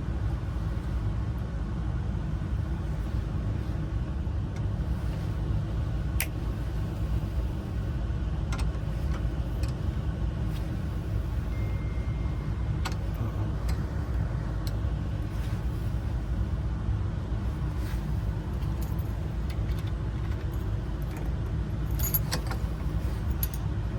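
Scattered small metallic clicks and clinks as the parts of a truck ignition lock cylinder and its keys are handled and fitted together, over a steady low rumble. The clicks come a few seconds apart, with a cluster near the end.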